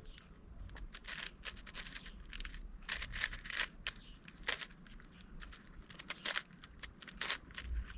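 Plastic slices of an 8x8 Rubik's Cube being turned by hand: irregular short clicks and scrapes, a few every second.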